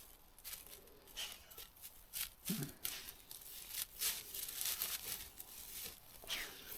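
Dog gnawing a cow leg bone: irregular faint crunches and tearing sounds.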